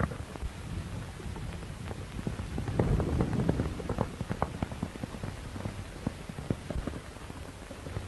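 Worn 1930s optical film soundtrack: a steady hiss and low hum with scattered crackles and thuds, thickest and loudest about three seconds in.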